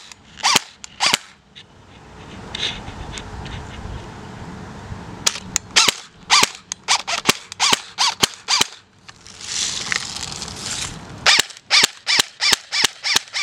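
BB gun firing in quick strings of shots, about three or four a second, with pauses of a few seconds between strings.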